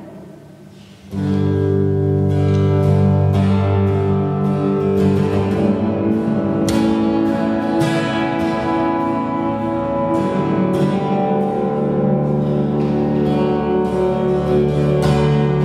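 Acoustic guitar music coming in about a second in after a brief lull, with plucked notes over sustained low tones.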